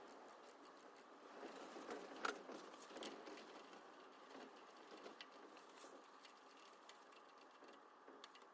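Faint clicks and knocks of hand tools being worked on a car engine, opening with a quick run of evenly spaced clicks and with one sharper knock a little over two seconds in.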